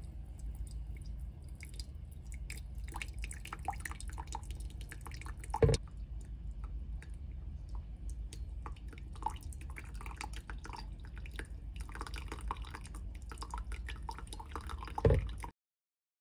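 Coffee dripping through a paper drip bag in a ceramic dripper into a mug: a run of small drips and trickles over a low steady hum, with two louder plops, one about six seconds in and one near the end.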